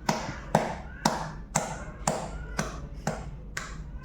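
A hand patting a newborn baby's back in a steady rhythm of about two pats a second, burping the baby after a feed.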